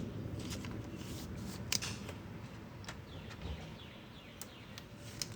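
Faint clicks and light rustling of trading cards being handled, with a low steady hum under them.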